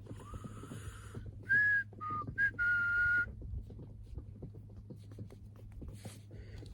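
A person whistling a few held, breathy notes over about the first three seconds, above a steady low hum.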